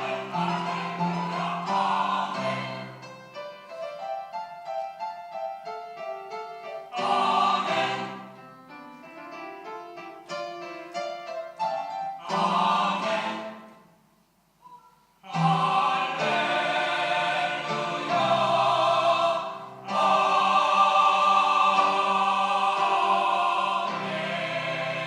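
Church choir singing an anthem with piano: short choral phrases alternate with piano passages, then after a brief pause about fourteen seconds in the full choir comes back and holds long, loud chords.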